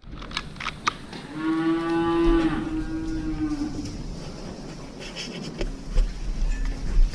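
A cow mooing once, one long call of about three seconds, after a few sharp clicks near the start.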